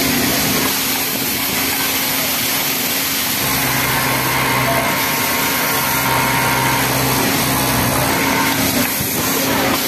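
Pegasus flatlock industrial sewing machine stitching the neckline of a cotton jersey t-shirt in three short runs, starting about three and a half seconds in and stopping near the end, over a steady motor hum and workshop hiss.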